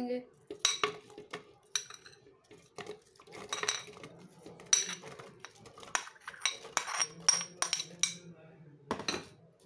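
Steel spoon clinking against a ceramic bowl as cubed fruit is scooped into a plastic blender jar: irregular sharp clinks with a short bright ring, with soft knocks of the pieces dropping into the jar.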